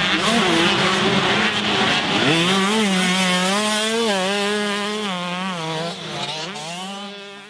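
Two-stroke motocross bike engine revving hard, its pitch rising and falling again and again as the throttle is worked, fading out near the end.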